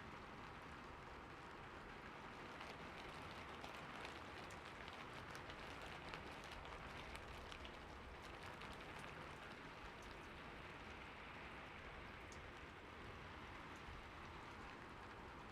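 Faint, steady rain falling on a rooftop: an even hiss scattered with many small drop ticks, heavier through the middle.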